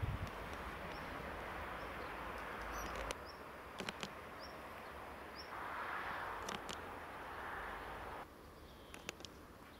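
Open-field ambience: a steady rushing hiss with a few short, high bird chirps and scattered faint clicks. The hiss swells about six seconds in and drops away abruptly a little after eight seconds in. No thunder is heard.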